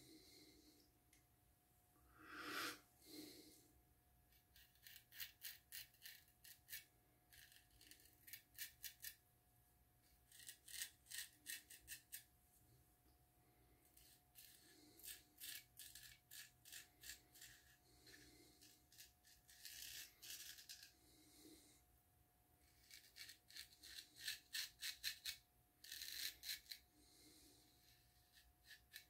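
Friedr. Herder straight razor scraping lathered stubble on the neck in a series of short strokes. Each stroke is a quick run of faint crackling clicks as the blade cuts the whiskers, with pauses between strokes.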